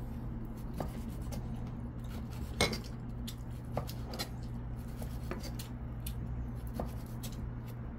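Knife and fork clinking and scraping on plates while eating steak, a scatter of light clicks over a steady low hum.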